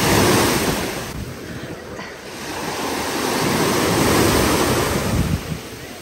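Small Black Sea waves breaking and washing up a sandy shore: a foaming rush at the start that ebbs about two seconds in, then a second wash that builds to its loudest around four seconds and fades again.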